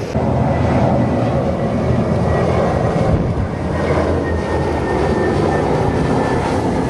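Airbus A320-family jet airliner passing low on final approach, landing gear down: steady jet engine noise with a thin high whine that slowly falls in pitch as it goes by.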